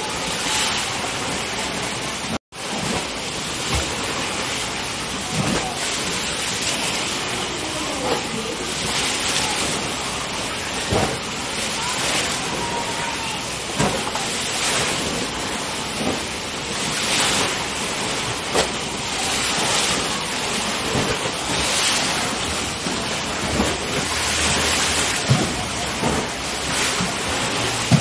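Machine-made waves in a giant wave pool surging and splashing as a steady rush of water, with scattered shouts from people in the water. The sound cuts out for an instant about two seconds in.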